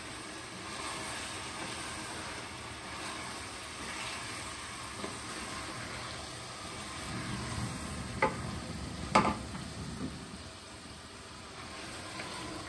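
Spinach sizzling in a cooking pot as it is stirred, the water cooking off. There are a few sharp knocks about two-thirds of the way through.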